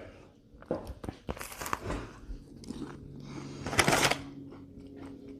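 Close-miked chewing and biting of a Buc-ee's paddletail pastry, irregular small crunches and mouth clicks, with a louder crunch about four seconds in. A faint steady hum runs underneath in the second half.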